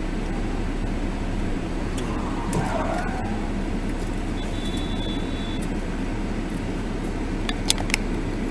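Steady engine and road noise of a car driving. A short, thin high beep sounds about halfway through, and a few sharp clicks come near the end.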